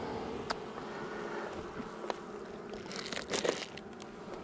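Honeybees buzzing steadily around an open hive, with a few sharp clicks and rustles of handling, most of them around three seconds in.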